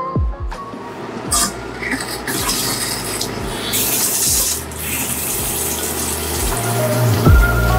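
Water running from a newly installed faucet into a sink, a steady splashing stream.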